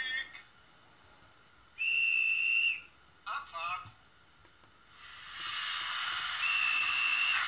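Steam-locomotive sounds of a BR 91 sound project played by a LokSound 5 micro decoder through the model loco's small speaker: a short steady whistle blast lasting about a second, then from about five seconds in a steady steam hiss with a second whistle blast over it near the end.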